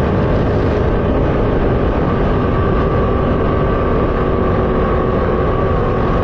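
Sprint car's V8 engine running hard at a steady pitch, heard from an onboard camera mounted in the cockpit.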